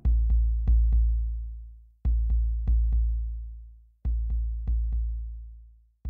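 Electronic drone music down to a sparse drum pattern. A deep bass boom starts every two seconds and fades slowly, with a quick run of four sharp clicks in the first second of each.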